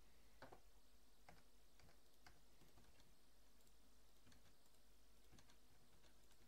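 Near silence with a few faint, scattered clicks of a computer keyboard and mouse.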